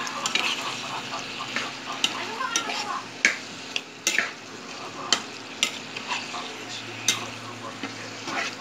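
Tokwa sisig (fried tofu mix) sizzling in a frying pan as it is stirred, with a steady sizzle and a spatula knocking sharply against the pan about once a second.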